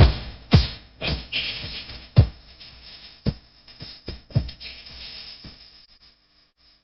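Music with heavy drum beats that fades out and stops about six seconds in.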